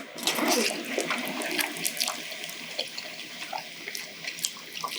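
Noodles being slurped and chewed up close, a run of wet slurping with many small smacks and clicks, loudest in the first second or so.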